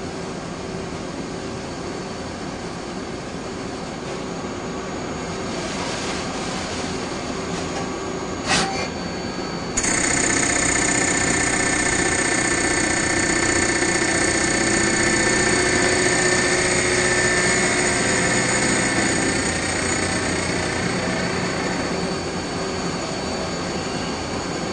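CNC lathe running while turning a metal workpiece, a steady mechanical noise. A sharp click comes a little over eight seconds in. Just before ten seconds the sound jumps louder and takes on a high whine, which holds for about twelve seconds and then fades.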